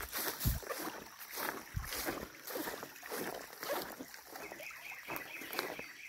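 Footsteps through grass and damp ground beside a small creek at a walking pace: soft thuds and rustles about every half second.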